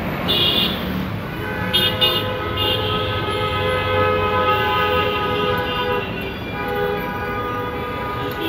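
Street traffic with a vehicle horn sounding long, steady tones over a constant traffic hum. There are short, sharper horn blasts near the start.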